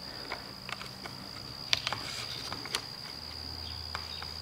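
Screwdriver loosening screws on a trimmer's plastic air cleaner housing: faint scattered clicks and ticks of metal on screw heads, with two sharper ticks about midway. A steady high whine runs underneath, and a low hum comes in near the end.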